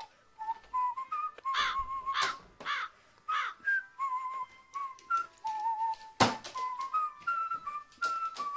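Background music carrying a whistled melody, with a few short, louder sounds in the first half and a sharp knock about six seconds in.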